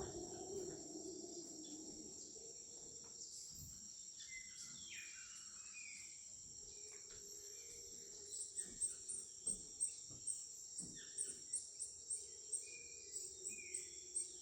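Tropical forest ambience: a steady, high-pitched insect drone with scattered short, falling calls from birds or frogs. From about eight seconds in, a series of short, sharp chirps at roughly two a second becomes the loudest sound.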